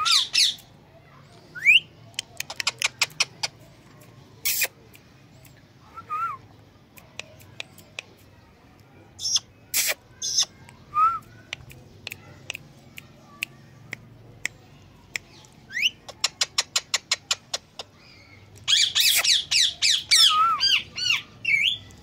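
Indian ringneck parakeet calling: sharp squawks here and there, short rising whistles, and two quick runs of rapid clicking chirps. A dense run of squawks and warbling chirps comes near the end.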